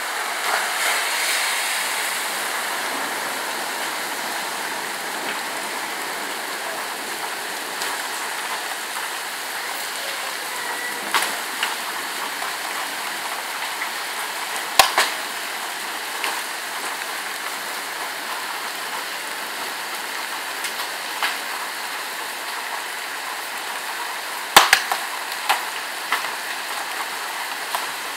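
Heavy rain pouring steadily, with a handful of sharp knocks, the loudest about halfway through and again a few seconds before the end.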